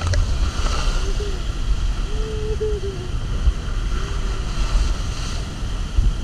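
Steady rushing of water and air inside an enclosed water-slide tube as an inflatable raft slides down, with a heavy low rumble. A few short, faint tones that rise and fall come through about one to four seconds in.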